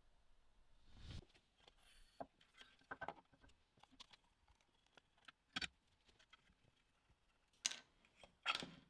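Quiet handling sounds of a laser rotary attachment's parts: scattered clicks, taps and rubs as the black aluminium frame and a rubber-covered roller with a metal bearing are handled and fitted together, with a few sharper knocks near the end.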